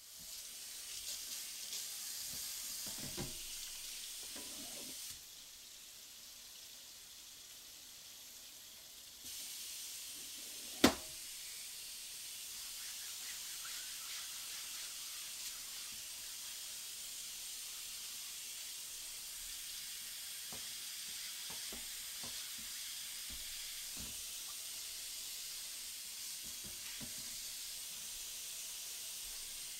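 Kitchen tap running into a stainless-steel sink while a plastic cutting board is rinsed and scrubbed under the stream. The flow drops lower for a few seconds, and there is one sharp knock about eleven seconds in, the loudest sound, with a few fainter knocks of the board against the sink later.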